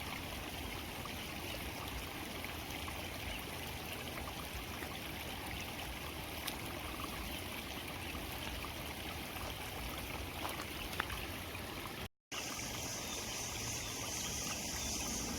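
Water from a rice-paddy outflow running steadily. About three-quarters of the way through the sound drops out for a moment and comes back with a higher hiss.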